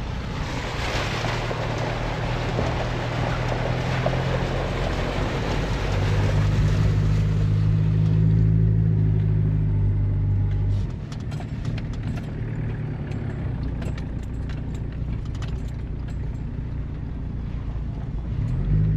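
Four-wheel-drive vehicle's engine heard from inside the cab while driving a rough track. A rushing hiss fills the first several seconds. The engine pulls harder for a few seconds, eases off about eleven seconds in, and picks up again at the end, with light rattles in between.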